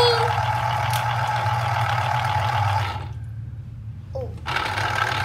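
Electric citrus juicer's motor whirring as an orange half is pressed onto the spinning reamer. It stops about three seconds in when the pressure comes off, then starts again near the end as the fruit is pressed down once more.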